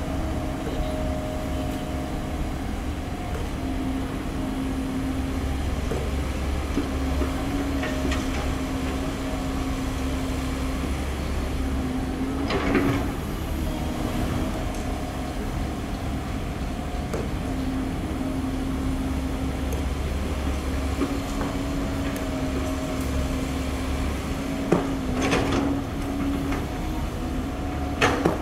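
Komatsu PC130 hydraulic excavator's diesel engine running steadily under digging load, its pitch shifting slightly as the hydraulics work. A few sharp metallic knocks come about halfway through and twice near the end.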